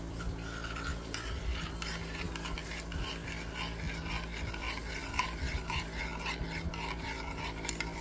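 Metal spoon stirring coffee in a glazed ceramic cup: quick repeated clinks and scrapes against the cup's sides, some with a short ring.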